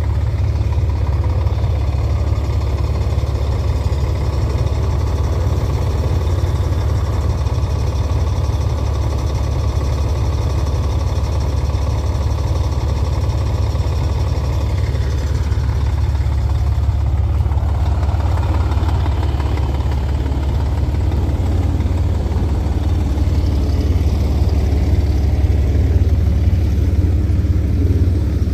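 Heavy diesel engine idling steadily with a deep, even hum.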